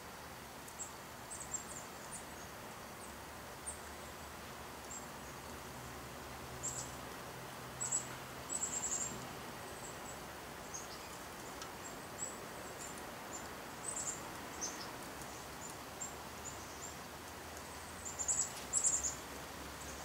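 Small songbirds at a backyard seed feeder chirping: short, high chirps scattered throughout, bunched in quick runs about eight seconds in and again near the end, over a faint steady background hum.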